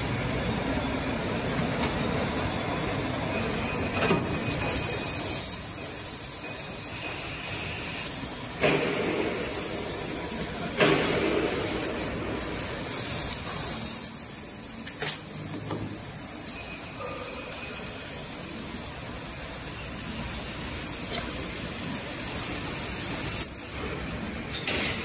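1000 W fiber laser cutting machine cutting 4 mm carbon steel plate: hiss of assist gas at the cutting head in stretches of a few seconds, with sharp clicks between, over a steady machine hum.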